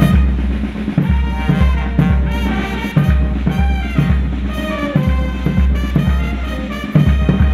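Brass band playing a march, trumpets and brass over a steady drum beat about twice a second.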